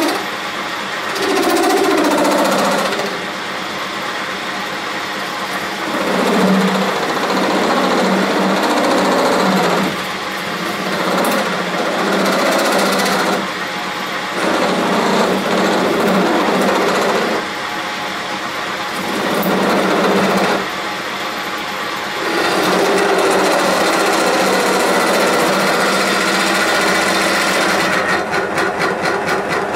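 Metal lathe turning a hardened steel steering worm shaft with a carbide tool, the cutting noise swelling and dropping in stretches of a few seconds. The carbide is struggling with the shaft's induction-hardened surface. A fast, even ticking comes in near the end.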